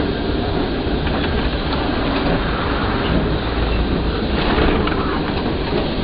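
Historic Lisbon tram running along its street rails, heard from inside at the front: a steady rumble of wheels and running gear with light clicks, and a brief rise in hiss about four and a half seconds in.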